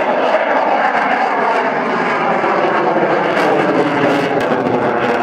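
Dassault Rafale's twin M88 turbofan engines running loud in afterburner through a tight display turn, a steady jet roar whose pitch slowly falls.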